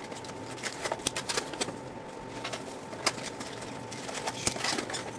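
Trading cards and their packaging handled by hand: irregular clicks, taps and rustles, with a faint steady hum underneath.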